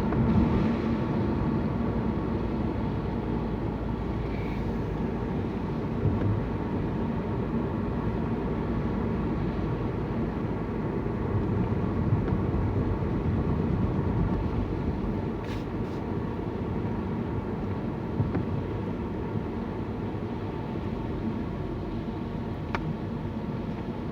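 Steady engine and tyre noise inside the cabin of a car driving slowly along a road, with a few faint clicks.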